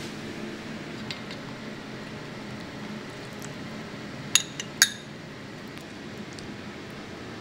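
Tableware clinking: two sharp, ringing clinks about half a second apart with a softer tick between them, over a steady low background hum.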